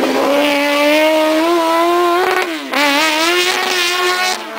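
Modified Ford Ka race car's engine revving hard under acceleration, its pitch climbing steadily. The pitch drops sharply at a gear change about two and a half seconds in, and there is another brief dip near the end.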